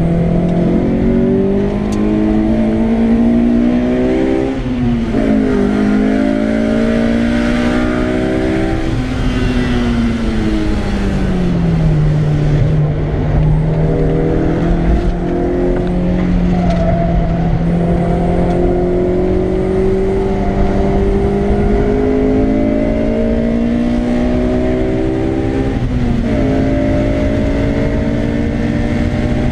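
Honda S2000's four-cylinder engine heard from inside the cabin while driven hard on track: the revs climb through the gears, drop sharply at upshifts about four seconds in and again near the end, and fall away for a few seconds as the car slows before pulling up again.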